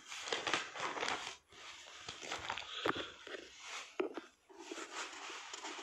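Irregular crackling and rustling from a hand-held phone's microphone being rubbed and handled.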